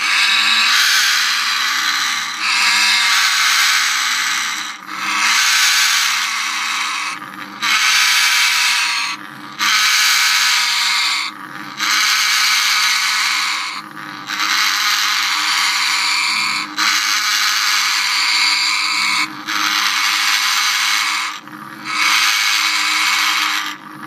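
African grey parrots in a nest box growling and hissing harshly in repeated long bouts, each about two seconds, with short breaks between. This is the defensive warning the birds give when their nest box is intruded on.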